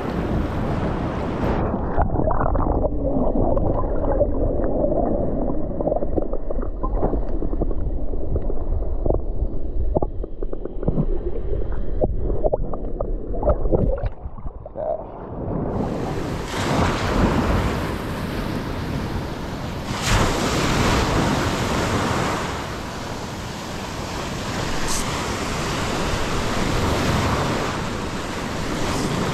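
Ocean water sloshing around a camera held at the waterline, heard muffled with light gurgles and knocks while the microphone is under water. At about the halfway point it comes up into the air and breaking surf and wind buffeting the microphone are heard clearly.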